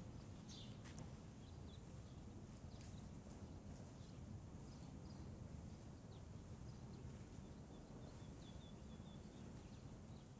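Near silence: faint low room hum, with a few faint high chirps from distant birds.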